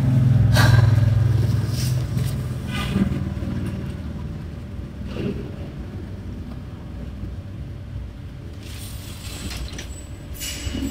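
A low rumble, loudest at the start and fading over the first few seconds, with a few faint clicks.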